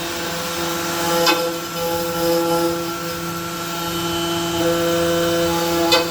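Emresan CNC router running, its axis motors giving off steady whining tones that start, stop and change as the axes move, over a steady lower hum. Two sharp clicks, about a second in and near the end.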